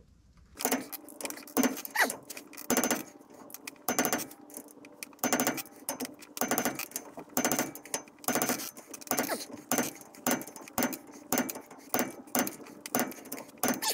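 Ratchet of a torque wrench clicking in quick repeated runs as axle flange bolts are cranked down toward their 115 foot-pound setting.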